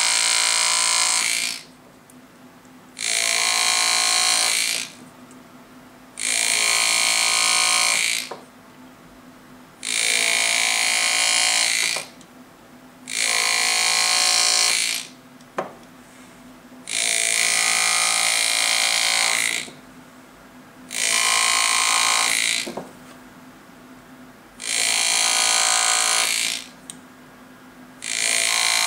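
GRS GraverMax pneumatic engraving handpiece with a square-point graver buzzing in repeated bursts of about two seconds, one after another every three seconds or so. It is making shallow first-pass cuts that mark the main lines of a monogram in a gold signet ring.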